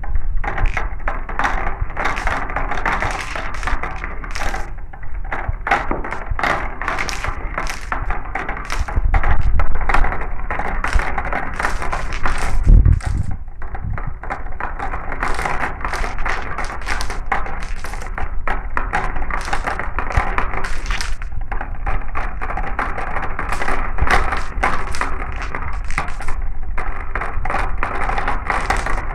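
Marbles rolling down a marble run, a continuous rolling rattle with many quick clicks and clacks as they hit the track and each other.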